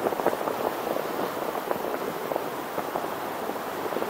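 Steady rushing wind and road noise, peppered with small crackles, picked up by a 360 camera's microphones while riding.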